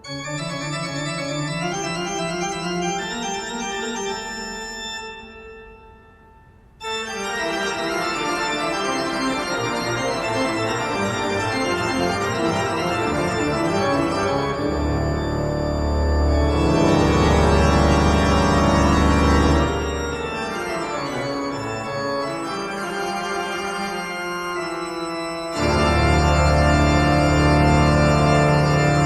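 Background music led by a sustained organ, with held chords; it fades out and starts again about seven seconds in, and a heavy low bass comes in about halfway through and again near the end.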